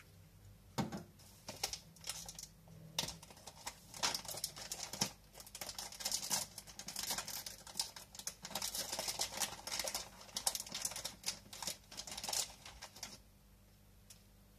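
Rapid, irregular clicking and crinkling from hands working in a plastic bag of rock salt for topping the rolls. It thickens about four seconds in and stops short about a second before the end.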